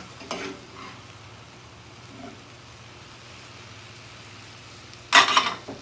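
Stir-fry vegetables sizzling in a cast iron skillet, a steady hiss, with a spatula scraping against the pan in a short loud burst about five seconds in.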